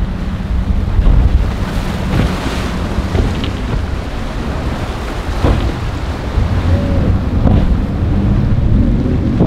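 Wind buffeting the microphone over the wash of rough surf at an ocean inlet, steady and loud throughout.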